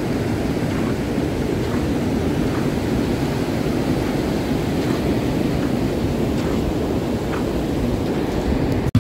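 Ocean surf washing up a flat sand beach, mixed with low rumbling wind noise on the microphone. The sound is a steady rush that cuts off suddenly near the end.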